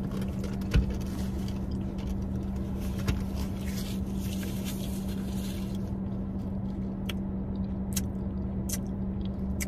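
Small eating and handling noises at the table, a knock a little under a second in and a few sharp clicks near the end, over a steady low hum.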